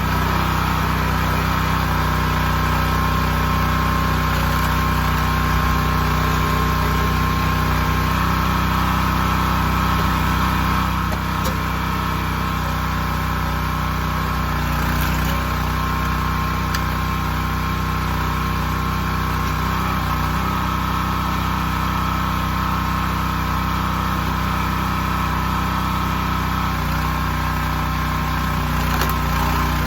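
The 212cc single-cylinder gas engine of a Predator 20-ton log splitter, running steadily to drive the hydraulic pump.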